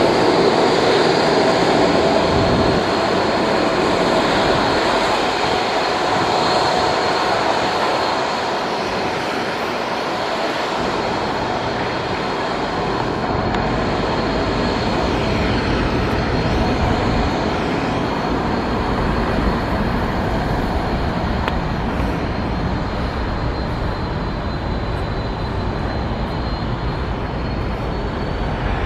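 Boeing 767-300F freighter's turbofan engines at low taxi power as the jet taxis by: a steady rush of jet noise with a high whine over it. There is more low rumble from about ten seconds in.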